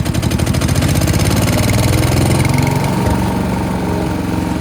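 Small gasoline engine of a wood chipper shredder, just started on a little choke, picking up speed over the first second or so and then running steadily.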